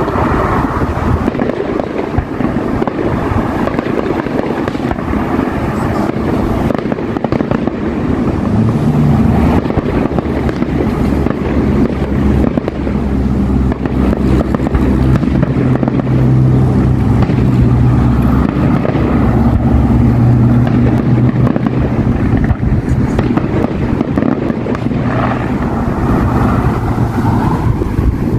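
Wind buffeting the microphone as a loud, low rumble, with a steady low hum coming in about a third of the way through and fading near the end.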